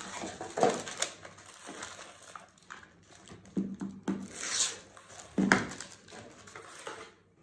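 Tissue-paper pattern and fabric rustling on a work table, with scattered light taps and knocks as sewing tools are picked up and set down.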